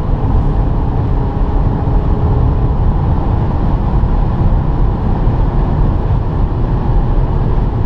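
Cabin sound of a Škoda Kodiaq's 2.0 TDI four-cylinder turbodiesel pulling under full throttle at about 160–180 km/h: a steady heavy drone with wind and road noise. The automatic gearbox shifts up from fifth to sixth partway through.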